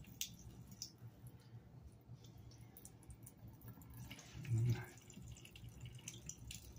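Bathroom faucet running a thin stream of water into the sink drain, with small drips and spatter. A short voice sound cuts in about four and a half seconds in and is the loudest thing.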